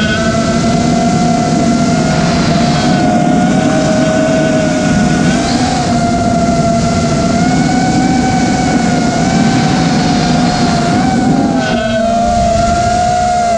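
Brushless motors and propellers of an Eachine Wizard X220 FPV racing quadcopter in flight, heard from its onboard camera: a steady whine whose pitch wavers up and down with the throttle, over a rushing noise of prop wash and wind that eases about twelve seconds in.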